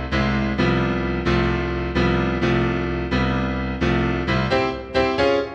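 Computer playback of a sampled piano accompaniment from music notation software, playing repeated full chords in a steady pulse. The chords come closer together near the end, with the low bass dropping away.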